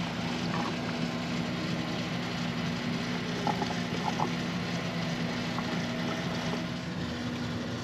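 Gasoline being poured from a gas can into a car's fuel tank: a steady rushing with a few faint clicks, over a low steady hum.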